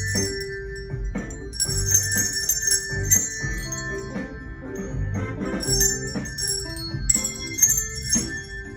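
Handbells ringing a tune in held notes, with bursts of jingle-bell shaking a few times over it.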